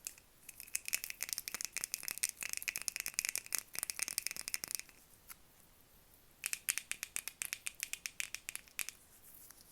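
Rapid tapping and rattling on makeup items close to the microphone, in two bursts: the first about four seconds long, then a short pause, then about two and a half seconds more.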